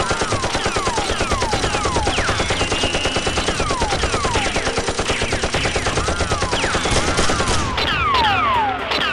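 Rapid automatic gunfire, about eight shots a second without a break, with repeated falling whistle-like tones over it. It is a dubbed-in machine-gun sound effect rather than a real Nerf blaster.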